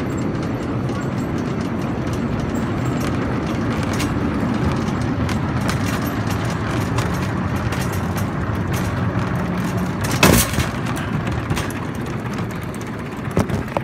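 Shopping cart escalator carrying a red plastic-and-metal shopping cart: a steady mechanical rumble and rattle with a low hum. A sharp clack comes about ten seconds in, and a smaller one near the end.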